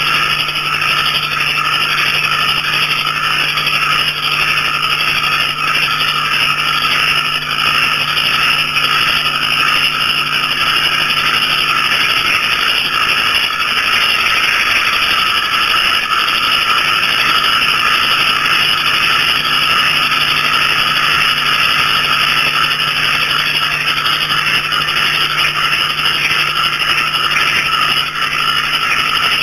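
Dense, steady night chorus of small frogs and crickets calling together without a break.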